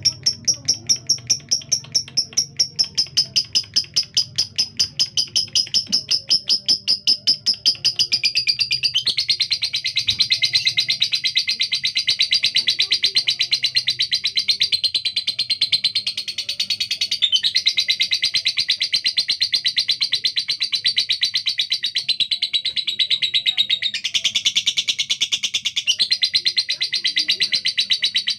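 Female lovebird singing with a harsh, rough voice at high speed. It opens with evenly repeated sharp chirps, about four a second, then after about eight seconds breaks into a long, continuous, very fast rasping chatter.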